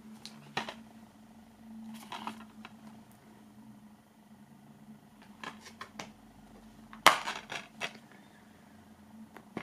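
Plastic DVD case being handled: faint taps and rubs as it is turned over, then a sharper click about seven seconds in as the case is snapped open, followed by a few smaller clicks. A faint steady hum sits underneath.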